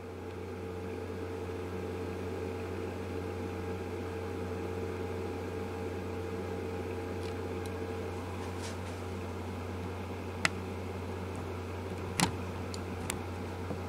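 Steady low mechanical hum of workshop room noise, with three light clicks in the last few seconds.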